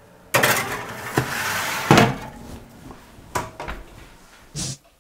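Metal baking tray slid along the oven's shelf runners with a scraping rattle, then the oven door shut with a sharp knock about two seconds in. Two lighter knocks follow later.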